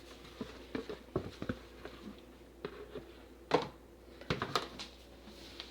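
Scattered light clicks and knocks of soap-making tools and containers being handled on a work surface, with a sharper knock a little past the middle and a quick cluster soon after.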